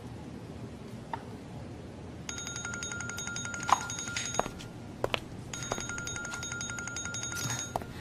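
Mobile phone ringing, two rings of fast-pulsing electronic tone, starting a little over two seconds in, with a few light clicks and knocks between them.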